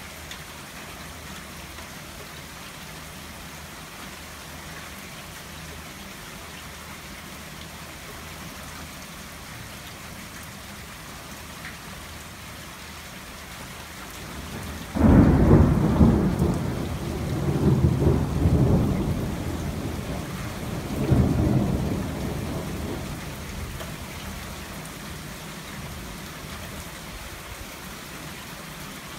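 Steady rain from a squall-line thunderstorm. About halfway through, a sudden loud clap of thunder breaks in and rumbles on through two further swells for about eight seconds before dying back under the rain.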